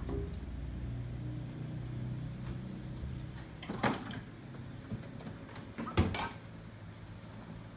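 Knocks and thumps of a small pet monkey clambering over a wooden cabinet and a flat-screen TV, with a sharp knock just before four seconds in and the loudest about six seconds in, over a low hum.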